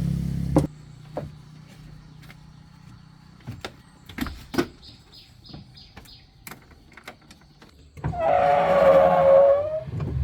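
A running motor stops about half a second in. Scattered knocks and clicks of metal parts and tools follow, including a quick run of about six light clicks. Near the end a small electric motor whirs loudly for about two seconds.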